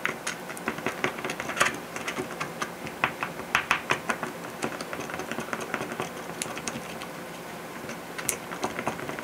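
A stir stick tapping and scraping against a small mixing cup while two-part epoxy is stirred, making quick, irregular clicks, several a second.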